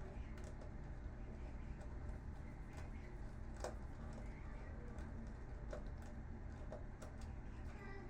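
A screwdriver working screws out of a monitor's casing gives a few faint, scattered clicks and small taps over a steady low hum.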